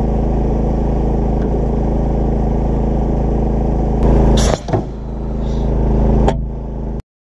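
A homemade air cannon charged to 100–120 psi fires about four seconds in: a sudden loud blast and rush of air. About half a second later comes a sharp hit as the wooden pole strikes the armoured vehicle's steel shell. Before the shot a small engine runs steadily, and the sound cuts off suddenly near the end.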